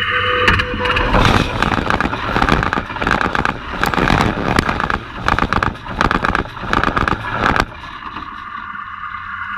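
A train running at speed directly over a camera lying between the rails: from about a second in, a loud rumble with a rapid clatter of wheels on the track, cutting off abruptly near the end as the last car clears. A steady high-pitched hum is there before and after it.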